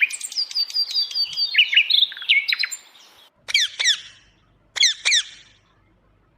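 Parrot chirping and whistling rapidly for about three seconds, then giving two pairs of short, sharp calls, each call falling in pitch.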